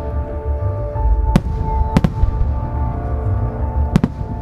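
Aerial firework shells bursting: several sharp cracks, two close together near the end, over a continuous low rumble of explosions. Music with long held notes plays along.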